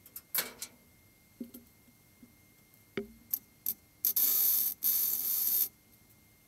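MIG welder crackling in two short bursts about four seconds in, with a brief break between them, as spot welds are made on the steel inner wing repair panel of a classic Mini. A few light clicks and knocks come before it as the torch is set in place.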